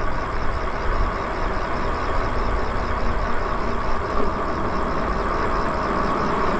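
Riding noise from a Lyric Graffiti e-bike rolling along a paved street: a steady low rumble of wind on the microphone, with a steady hum from the moving bike.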